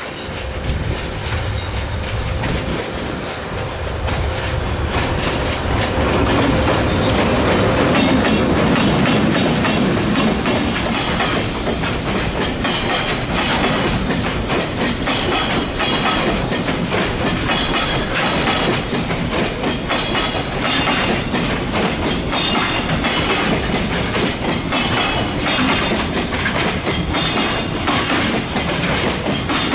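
JR Freight EH500 electric locomotive passing close by with a container freight train. The sound swells as the locomotive goes past, then the long string of container wagons rolls by with a steady clickety-clack of wheels over rail joints.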